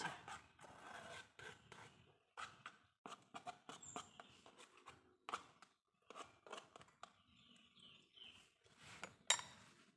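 Faint, irregular scrapes and taps of a spoon against a stone mortar as thick chili sambal is scraped down and smoothed, with one sharper tap a little before the end.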